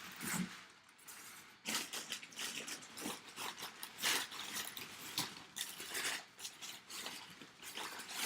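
Packaging rustling and crinkling in irregular, quick strokes as a sealed memorabilia box is dug into and an item pulled from it.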